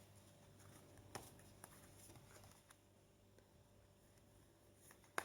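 Near silence: room tone, with a few faint clicks, the sharpest near the end.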